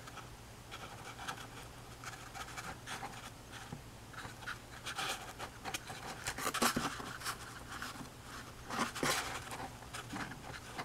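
Fingertips rubbing and pressing a moulded ornament onto a paper-towel-covered cardboard box: irregular scratchy rustling strokes, louder a little past the middle and again near the end, over a faint steady hum.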